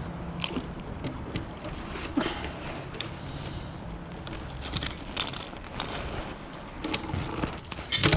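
Metal clinking and rattling as a steel wheel clamp is hauled up on a magnet-fishing magnet, with two louder bursts of jangling about halfway through and near the end.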